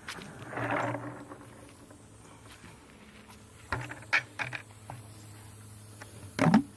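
Scattered knocks and clicks of handling. There is a short rush of noise about half a second in and a louder clunk near the end.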